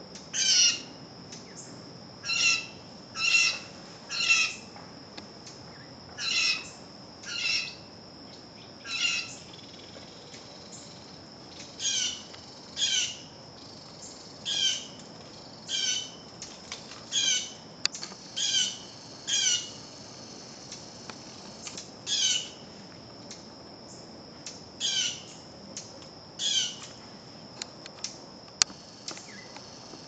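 Blue jay calling: short calls repeated in a long series, one every second or two and often in pairs, over a steady high-pitched background drone.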